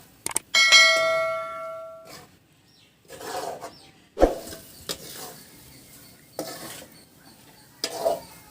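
A metal spoon strikes and scrapes a metal cooking pan. About half a second in there is a clang that rings for over a second. Scattered scrapes and knocks of stirring follow, including a sharp knock about four seconds in.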